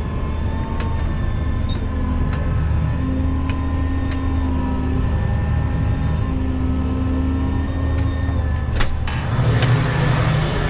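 Tractor engine running steadily under load, a low drone with scattered light clicks. About nine seconds in there is a sharp knock, and louder noise comes in over the engine.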